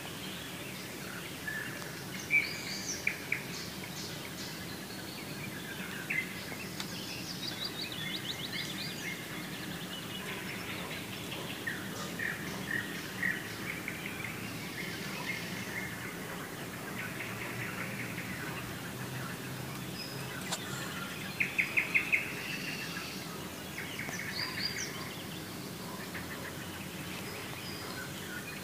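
Several birds singing and calling, with short chirps and quick repeated trills, over a steady low background rumble.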